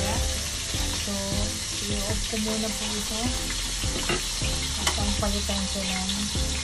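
Chopped garlic sizzling in hot oil in a wok, stirred with a wooden spatula that scrapes and knocks against the pan at irregular moments. Soft background music with held notes plays along.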